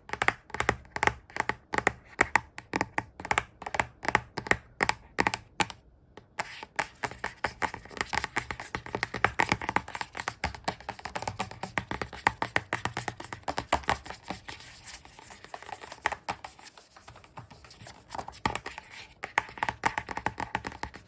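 Fingers tapping and scratching rapidly on a hard surface, in ASMR style: fairly even taps at about three a second at first, then after a brief pause faster, denser, irregular tapping.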